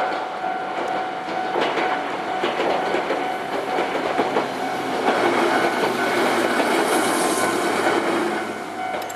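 A Nankai Kada Line train passes over a level crossing, its wheels clattering over the rail joints, loudest past the middle. Through it the crossing's warning bell keeps ringing steadily.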